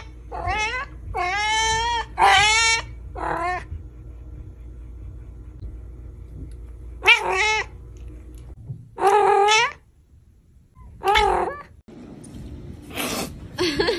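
Domestic cat meowing about seven times: four quick meows in the first few seconds, then three more spaced a couple of seconds apart.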